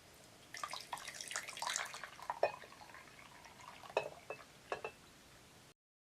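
Liquid pouring and trickling for about two seconds, then a few sharp, light clinks.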